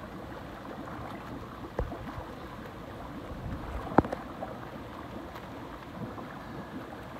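Hot tub jets running, a steady rushing, bubbling churn of water. A sharp knock about four seconds in, and a smaller one shortly before two seconds.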